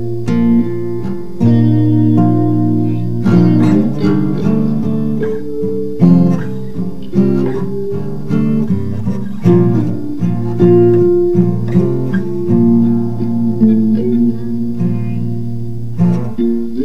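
Improvised instrumental blues guitar jam, multi-tracked with overdubs: plucked guitar notes and phrases over low notes held underneath.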